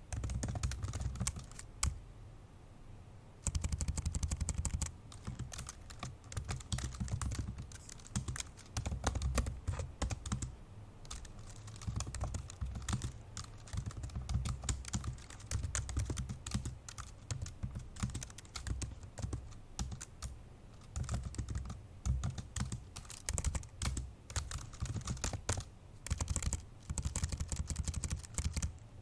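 Fast, forceful typing on an old MacBook Pro laptop keyboard: a dense run of key clicks, broken by brief pauses a couple of seconds in, around the middle, and just before the end.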